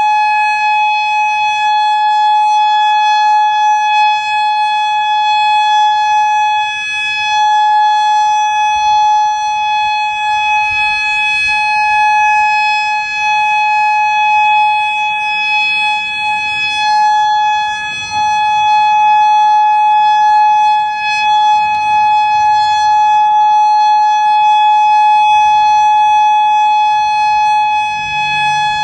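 Federal Signal Modulator 6048 electronic outdoor warning siren sounding its steady alert signal: one loud, level tone that holds the same pitch, swelling and dipping slightly in loudness. The unit has blown drivers.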